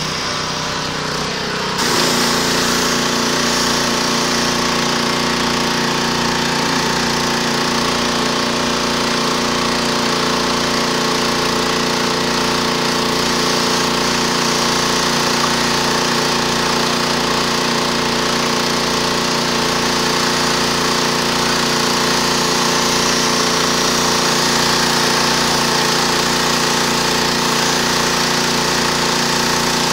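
Pressure washer running steadily while its spray wand blasts a concrete wall: a steady engine drone with a fast low pulsing under the hiss of the water jet. It gets louder about two seconds in, then holds.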